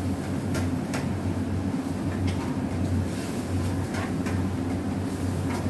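Steady low machine hum, with a few light clicks over it.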